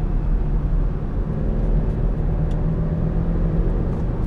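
A vehicle under way, with a continuous steady low engine and road rumble.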